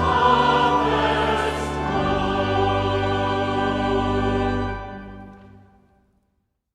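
Choir singing with instrumental accompaniment, ending a piece on a long held final chord that fades away about five seconds in.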